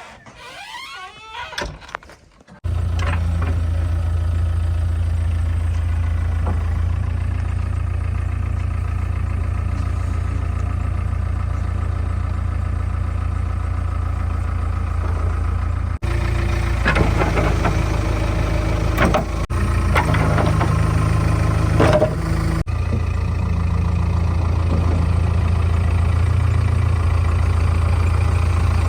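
Heavy diesel engine running steadily with a deep, constant hum. It cuts in abruptly about two and a half seconds in, and short clattering knocks sit over it about halfway through.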